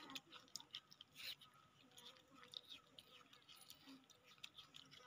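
Young monkeys chewing and biting into a slice of melon: faint, irregular wet clicks and smacks.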